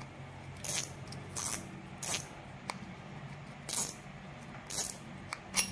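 About seven short, sharp metallic clicks at irregular intervals from a Shimano Stradic 2500HG spinning reel as its front drag knob is unscrewed and the spool is worked off the spool shaft.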